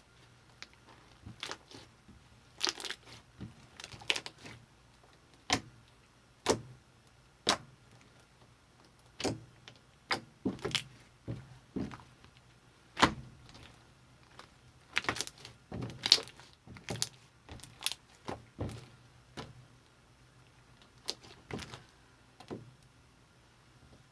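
Fluffy slime being squeezed and poked by hand, giving irregular sharp clicks and pops, about one or two a second.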